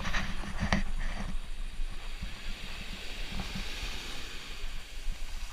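Wind buffeting the microphone over the steady wash of small waves breaking on the beach, with a few short splashes in the shallows in the first second or so.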